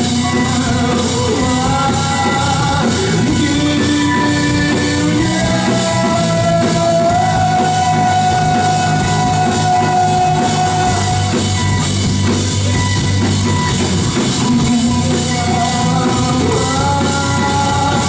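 Rock music with drums and guitar, and a voice singing long held notes that step up and down in pitch.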